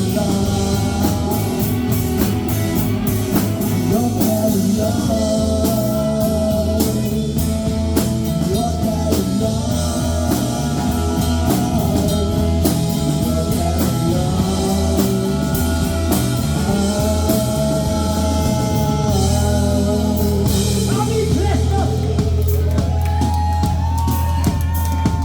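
A rock band playing live: singing over guitar, bass and a drum kit, with no break.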